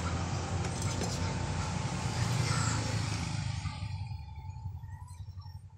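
A passing motor vehicle's engine, loud at first and then fading away over the last few seconds.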